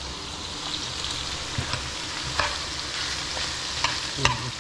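Fried rice with carrots and peas sizzling steadily in a hot frying pan as it is stirred, with a few sharp knocks of the utensil against the pan.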